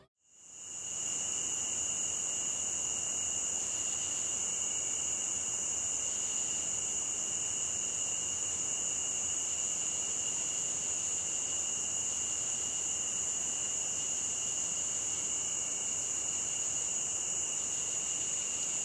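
Crickets trilling in a steady night chorus: an unbroken high-pitched trill on two pitches, one very high and one lower, fading in at the start.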